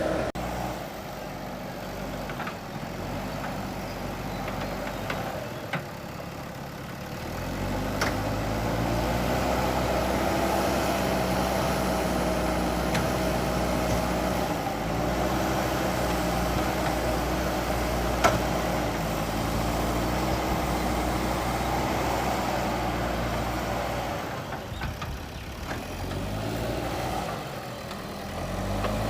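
JCB backhoe loader's diesel engine running, revving up under load about a quarter of the way in, holding steady, then easing off and climbing again near the end, with a few sharp knocks along the way.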